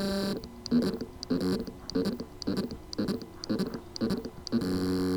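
Hard drive spindle motor trying to spin up. A brief whine gives way to a rhythmic pulsing about twice a second, and another whine begins near the end. This is the sound of loose motor contacts on the drive's circuit board: the motor can spin but cannot reach full speed.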